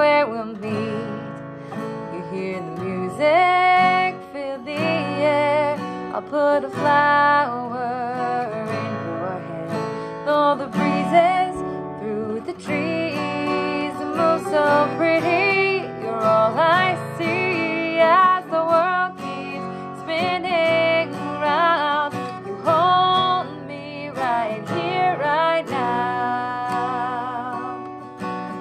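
A woman singing a slow love song, accompanying herself on a strummed acoustic guitar.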